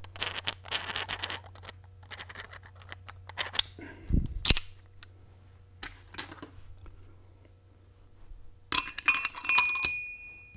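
Steel clutch plates and friction discs of a Dana 44 Powr-Lok limited-slip differential clinking and ringing as they are handled and stacked into the differential case half. A sharp louder clink about four and a half seconds in, and a quick cluster of clinks near the end.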